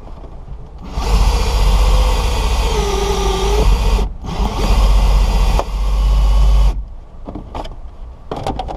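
Ryobi cordless drill running under load, driving a windshield cut-out winder that pulls the cutting wire through the glass's adhesive bead. It starts about a second in, stops briefly about four seconds in, then runs again until near seven seconds, followed by a few light clicks.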